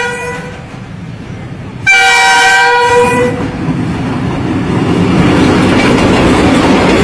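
Diesel locomotive sounding its horn: the end of one blast at the start, then a second blast of a little over a second about two seconds in. After that comes the growing rumble and wheel clatter of the locomotive and its coaches passing at close range.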